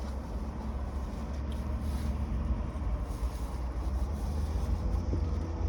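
Low, steady rumble of a vehicle engine, growing slowly louder.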